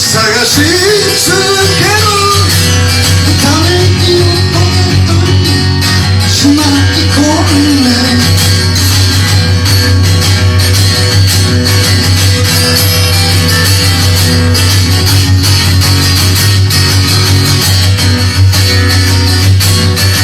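A band playing a song with guitar. A voice sings over it for about the first eight seconds, then the band plays on without singing.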